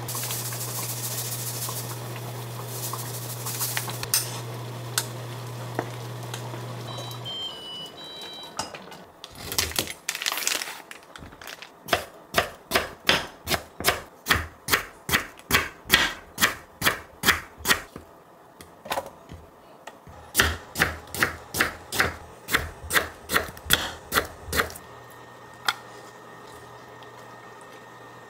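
Egg-drop soup simmering in a pot on an induction hob with a steady low hum, which cuts off after about seven seconds, followed by a few short electronic beeps. Then a kitchen knife slices pickled yellow radish on a wooden cutting board: sharp knocks about two a second, with a short break midway.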